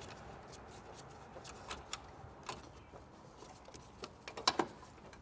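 Faint, irregular clicks and light taps of a hand tool working a 10 mm fastener that holds a windshield washer fluid reservoir, with a quick cluster of louder clicks about four seconds in.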